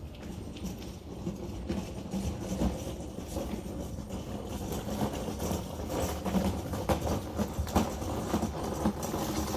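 Garden wagon rattling and clattering as it is pulled over the ground, growing louder toward the end.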